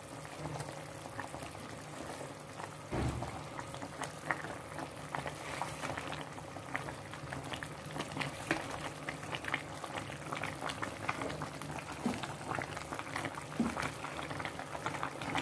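Spiced fish-and-brinjal curry boiling in a pan, a steady bubbling with many small pops that come thicker as it goes on. A single low bump about three seconds in.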